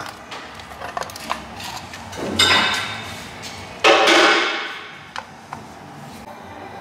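Parts of a car rear light unit being handled: a chrome light housing and its plastic lenses. There are a few light clicks, then two louder scraping, rustling sounds, one about two and a half seconds in and a louder one about four seconds in, each fading over about a second.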